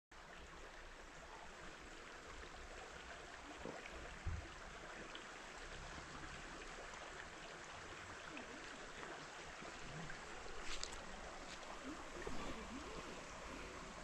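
Faint, steady flow of a shallow stream trickling over rocks, with a soft thump about four seconds in.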